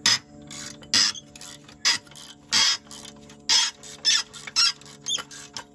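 Hand ratchet clicking in short bursts, about one stroke every half second to second, as it backs a nut off a rusted exhaust-manifold stud.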